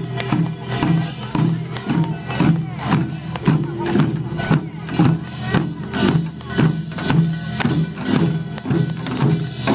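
Korean pungmul percussion band playing a steady beat of drum strikes, about two a second.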